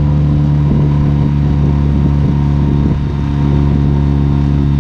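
Small outboard motor running steadily at one even pitch as it drives an inflatable boat along.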